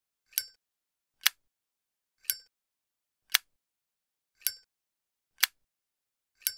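Metal flip-top lighter lid being snapped open and shut over and over, about once a second, alternating between a ringing metallic clink and a drier clack.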